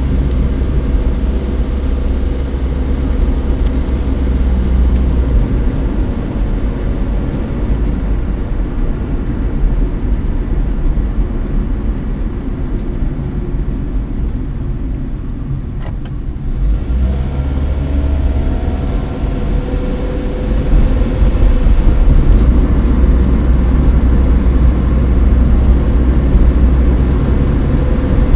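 Steady engine and road rumble of a car heard from inside the cabin while driving. The sound eases about halfway through, the engine note then rises as the car picks up speed, and it is louder in the last third.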